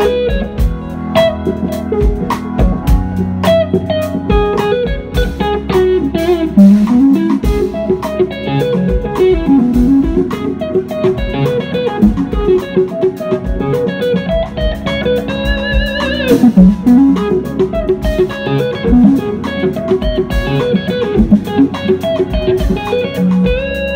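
Live blues-rock band: a lead electric guitar plays a melodic line of bent and sliding notes over bass guitar and drums, holding one long note with vibrato near the end.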